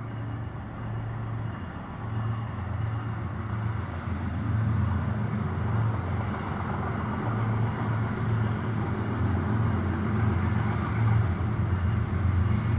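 CSX diesel freight locomotive approaching, its low engine rumble growing steadily louder.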